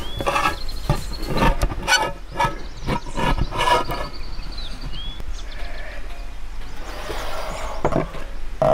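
Knife blade cutting around the rim of a tin can lid, a rough metallic crunch about twice a second for the first four seconds, then slower strokes as the lid is worked open. Birds chirp now and then.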